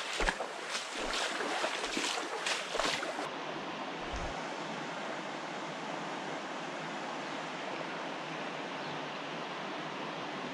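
A steady rush of surf and wind on the microphone. For the first three seconds it carries a regular crunching about twice a second, which stops abruptly.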